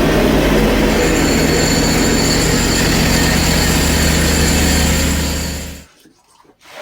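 Hud-son portable band sawmill running under load, its engine steady and its band blade cutting through hard maple with a high steady whine. It winds down and stops about a second before the end.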